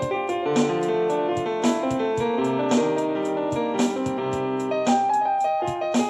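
Instrumental piano beat: piano chords and melody over a steady beat, with a strong hit about once a second and quick light ticks in between.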